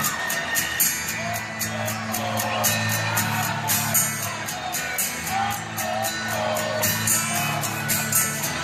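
Live acoustic music: sustained low chords under a steady beat of sharp hits about twice a second, with voices singing and whooping over it.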